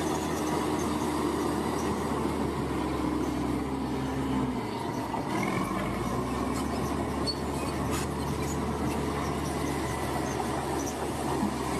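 Engine of an earthmoving machine pushing soil runs steadily, its note dipping and shifting briefly about halfway through.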